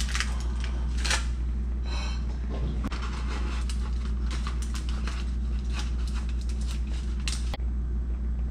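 Metal spatula scraping and clicking against an aluminium foil tray, with foil crinkling, as a cooked fish fillet is lifted off and slid onto a plate. A steady low hum runs underneath.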